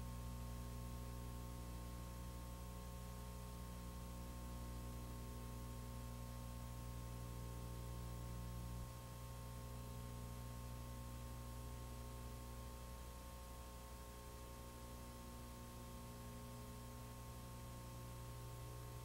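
Steady electrical mains hum with a faint hiss, a low buzz made of several evenly spaced tones; the deepest part drops a little about nine seconds in.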